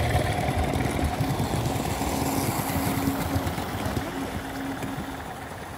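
Gauge 1 and O gauge model trains running on the layout's track: a low rumble of wheels on rail with a faint motor hum, growing quieter toward the end.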